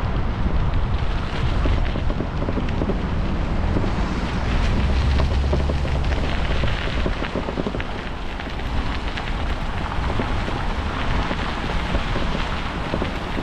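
Wind buffeting the microphone of a camera riding on a moving bicycle, a steady low rumble with crackling from the tyres on the path; the rumble swells for a couple of seconds near the middle.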